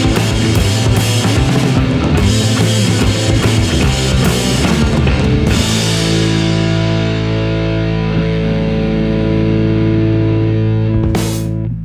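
Background rock music with drums and electric guitar. About halfway through the drumming stops and a held guitar chord rings on, cutting off just before the end.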